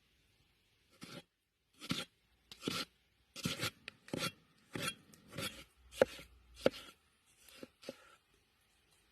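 Knife chopping food, about ten uneven strokes over some seven seconds.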